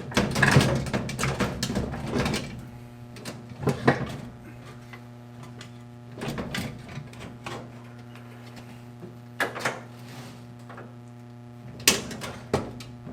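Irregular clunks, knocks and rattles of a washer's motor and transmission being handled and fitted back into place, in several clusters, over a steady low hum.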